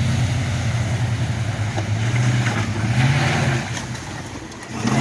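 A vehicle's engine running under load, its pitch wavering up and down, with a hiss over it. It eases off about four seconds in.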